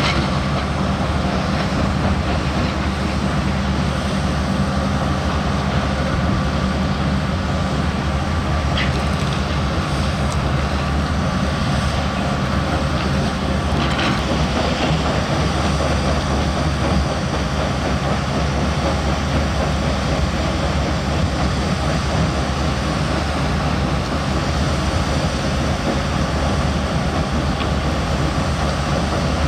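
Heavy diesel engine of a construction machine running steadily under load, a deep even drone with two faint clicks partway through.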